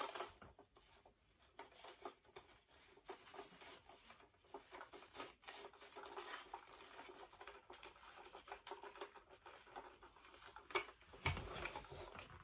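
Quiet handling noises from working on an animatronic Santa figure: faint rubbing, scratching and light clicks, with a sharper knock near the end.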